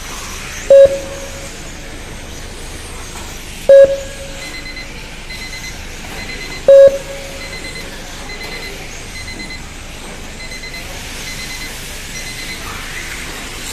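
Electronic beeps from a race timing system: three loud short beeps about three seconds apart, with a faster run of quieter, higher beeps between them, marking the race clock running out.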